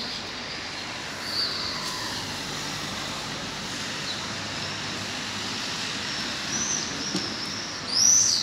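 Steady hum of city street traffic, with a few short, high bird chirps over it, the loudest near the end.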